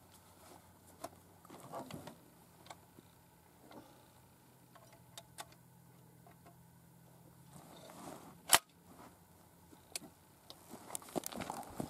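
A few small clicks of a 12-gauge shotgun being handled and shouldered, then a single sharp shotgun shot about eight and a half seconds in.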